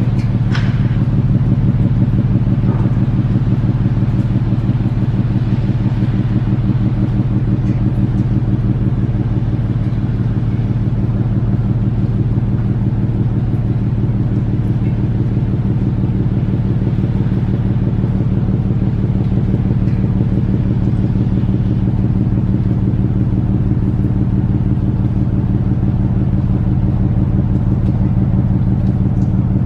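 Engines of the berthed container ship MSC Eva running: a loud, steady low drone with a fast, even pulsing beat, the banging noise that carries from the ship across the port.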